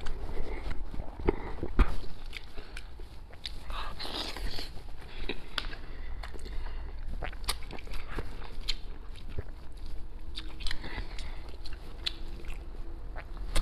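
Close-miked biting and chewing of braised chicken heads, with many sharp, irregular mouth clicks.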